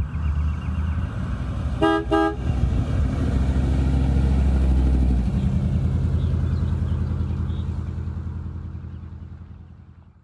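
Car engine running with a short double toot of the horn about two seconds in; the engine sound swells, then fades away over the last few seconds.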